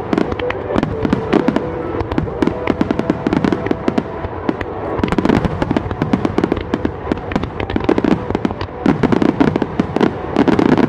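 Aerial fireworks going off in rapid succession: a dense, continuous string of sharp pops and crackles that grows thicker and louder near the end.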